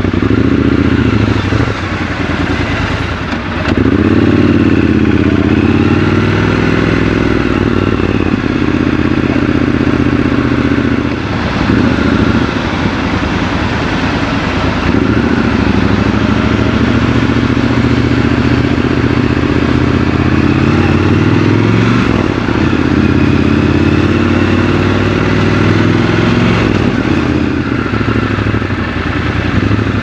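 Triumph Scrambler 1200 XC's 1200 cc parallel-twin engine heard from the rider's seat, pulling away and accelerating several times, its pitch rising through each pull and dropping as the throttle closes or the gear changes.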